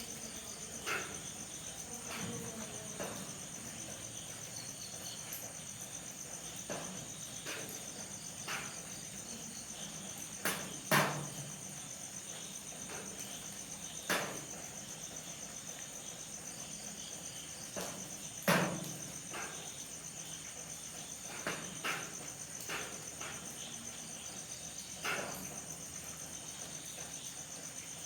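Night insects chirring steadily in a high, finely pulsing drone, with a scattered sharp tick or drip now and then, two of them louder than the rest.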